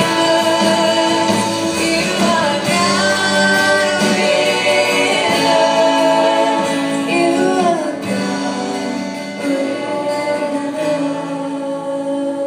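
A woman singing a worship song live, accompanied by acoustic guitar and a band. The music gets softer in the second half.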